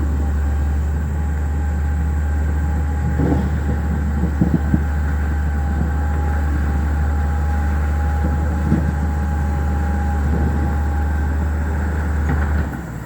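Hidromek motor grader's diesel engine running steadily: a deep drone with a faint steady whine above it. There are a few brief knocks between about three and nine seconds in, and the drone drops away near the end.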